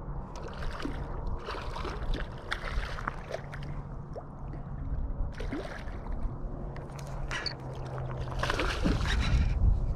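Water sloshing and splashing in irregular bursts, over a steady low rumble.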